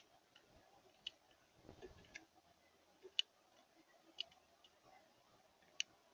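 Faint, sharp clicks or taps, about one a second at uneven intervals, over a very quiet background.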